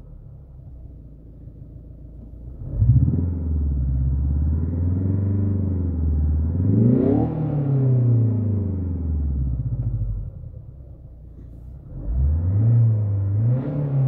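Synthesized engine-revving sound from the Renault Mégane 4's RS Sound Effect (engine sound design), playing its A110 sound profile through the car's speakers. A rev rises and wavers about three seconds in, peaks about seven seconds in and falls away around ten seconds, then a second rev begins about twelve seconds in.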